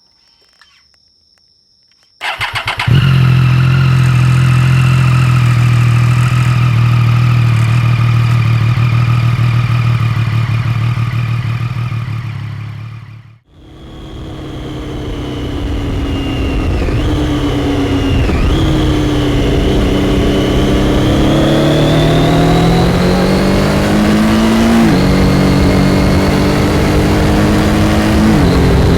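Triumph Daytona 675's three-cylinder engine starting about two seconds in and then idling steadily. After a fade out and back in around the middle, the bike is ridden, the engine pitch climbing and falling, with sudden drops in pitch at gear changes.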